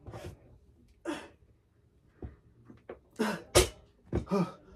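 A man's short, forceful exhales and grunts, about five of them, the loudest about three and a half seconds in: straining breaths from the effort of pressing a dumbbell overhead.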